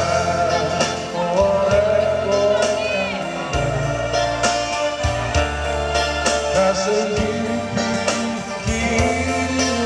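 Live acoustic folk-pop song: acoustic guitars strummed under a sung, wavering melody line, with a steady bass line beneath.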